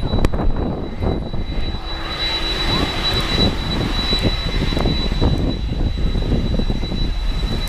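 Boeing 747-400's four turbofan engines at takeoff power as the airliner climbs away: a loud, steady, rough rumble.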